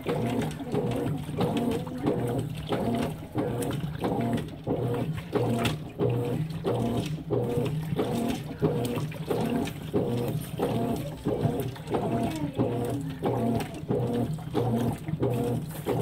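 Consul 16 kg top-load washing machine agitating a load of jeans: the motor hums steadily while the agitator swishes back and forth about twice a second, sloshing the water and clothes with each stroke.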